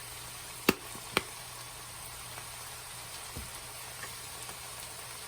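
Pan of chicken and mushrooms cooking with a steady faint sizzling hiss. Two sharp knocks about half a second apart come about a second in, then a soft low thump.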